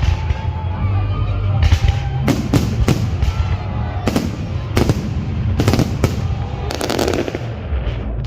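Fireworks bursting overhead: a rapid, irregular series of sharp bangs, about eight to ten, over a steady low rumble.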